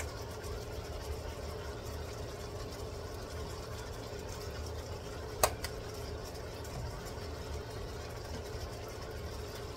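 Squid and long beans sizzling steadily in a hot wok over a constant low hum, with one sharp click about five and a half seconds in.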